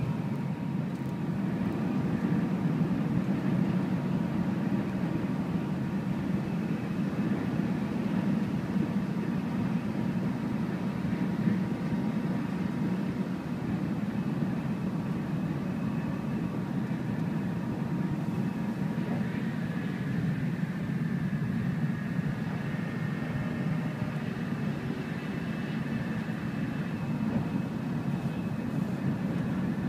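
Tokaido Shinkansen bullet train running at speed, heard from inside the passenger car: a steady low rumble with a faint steady whine above it.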